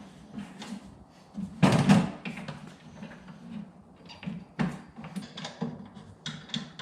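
Aluminium pannier case knocking and clicking against its metal luggage rack as it is seated and locked onto the mounts: a series of clunks and clicks, loudest about two seconds in.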